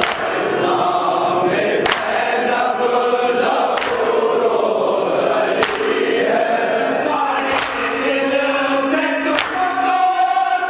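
Crowd of men chanting a mourning lament together, with a sharp slap about every two seconds from many hands striking chests in time (matam).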